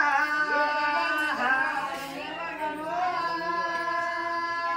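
A voice singing long, drawn-out held notes with slow pitch slides between them, in a chant-like Telugu devotional folk song.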